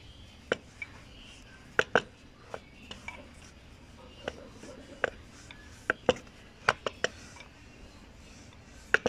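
Rolling pin working biscuit dough out on a board: irregular sharp clicks and knocks, about a dozen, spaced unevenly.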